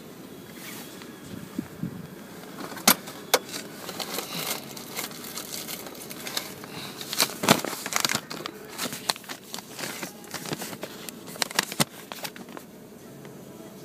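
Handling noise: a run of irregular clicks, taps and rustles, thickest in the middle and stopping shortly before the end, over a steady background noise.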